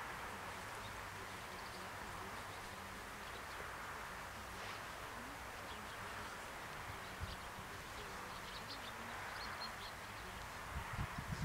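Rural outdoor ambience with faint bird chirps over a steady background hiss. Wind starts buffeting the microphone near the end.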